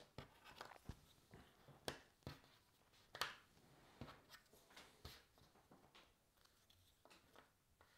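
Faint, irregular clicks and taps of cardboard jigsaw puzzle pieces being picked up, turned over and set down on a table.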